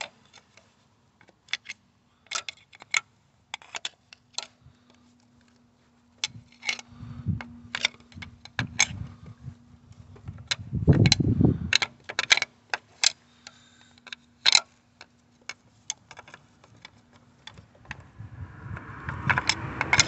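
Irregular clicks, scrapes and rattles of a gloved hand and tool raking rodent droppings and chewed nesting debris off the top of a diesel engine, with a louder rustling thump about halfway through.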